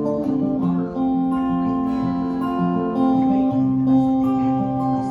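Acoustic guitar finger-picked in a Hawaiian slack key style, with ringing open-tuned bass notes under a plucked melody.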